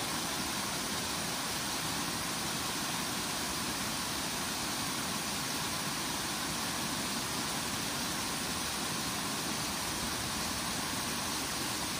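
Small mountain waterfall, water rushing steadily over rocks.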